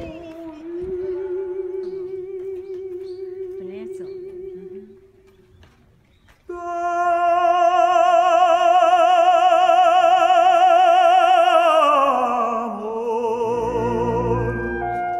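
Operatic background music of long held notes with wide vibrato. A softer held note gives way to a brief pause, then a loud sustained note that slides down in pitch near the end.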